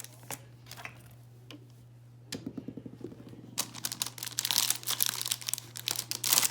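Toy packaging crinkling and rustling as fidget toys are handled: a few scattered clicks first, a short fast rattle about two seconds in, then dense crinkling from about halfway on.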